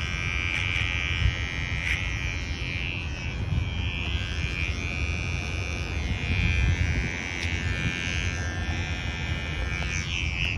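Cordless hair trimmer running with a steady high whine whose pitch wavers as it cuts short neck hair over a comb, with a few small clicks. A low rumble runs underneath.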